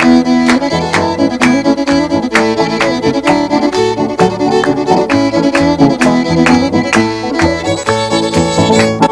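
Fiddle playing a lively old-time tune, over a steady beat of about two sharp strokes a second.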